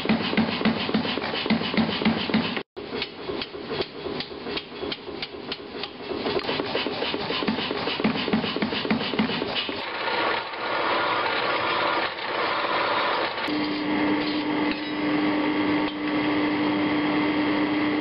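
Rapid hammering on stainless steel, about four blows a second, with a brief dropout near three seconds. From about ten seconds in it gives way to the steady noise of a running power tool, and a steady hum joins a few seconds later.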